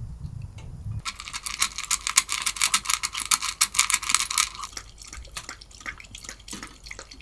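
A dog lapping from a stainless-steel bowl: quick, wet clicks and splashes that start about a second in, come thickest for a few seconds, then grow lighter.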